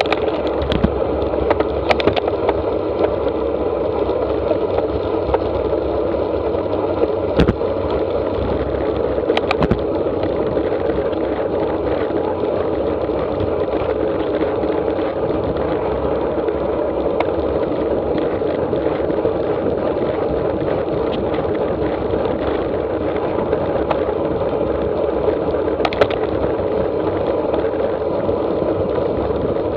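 Steady rush of wind and tyre-on-road noise picked up by a handlebar-mounted camera on a road bike at about 30 mph, with a few short sharp knocks.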